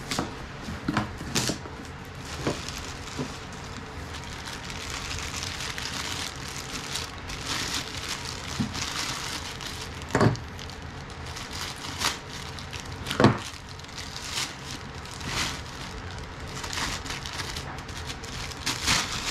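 Plastic packaging crinkling and rustling as plastic-wrapped gym equipment is handled and lifted out of a cardboard box, with scattered sharp knocks, the loudest about ten and thirteen seconds in.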